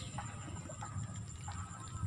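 Outdoor ambience: a low wind rumble on the microphone, with faint short chirps a few times a second and a thin steady high tone.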